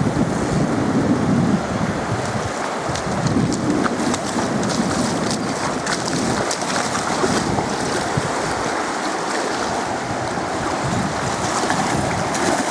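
Wind buffeting the microphone over shallow surf washing on the beach, with a hooked redfish splashing in the shallows now and then.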